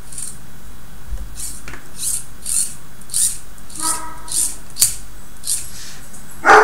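Hands handling the plastic parts and string of a construction-kit crane model: short rubbing sounds about twice a second, a brief squeak about four seconds in, a sharp click shortly after, and a louder short sound at the very end.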